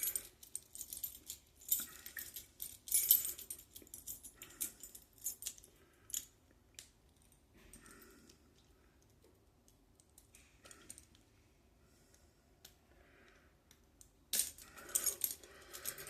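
Metal handcuffs clinking and jangling in short bursts of clicks as they are worked open behind the back. It is sparse and quieter through the middle, with a denser jangle near the end.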